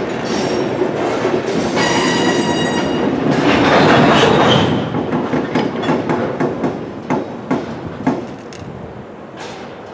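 CN freight train cars rolling past on the rails, with a brief high wheel squeal about two seconds in, then a run of clicks as the wheels cross rail joints, growing fainter near the end.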